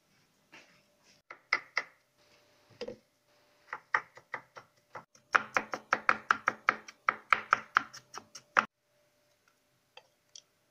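Knife chopping and mincing garlic on a cutting board. It starts with a few separate chops, then a fast even run of about six chops a second for some three seconds in the middle, which stops abruptly.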